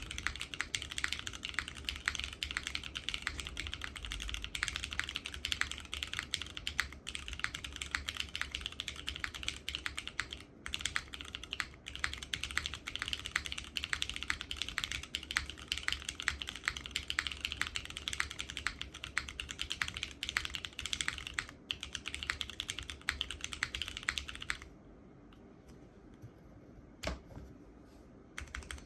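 Fast, continuous typing on a custom mechanical keyboard: Cherry Hyperglide housings with Razer Orange tactile stems on a polypropylene leaf-spring plate, with GMK keycaps and no foam, giving a muted, Cherry-Brown-like clacking. The typing stops about 25 s in, one lone keystroke follows, and typing picks up again right at the end.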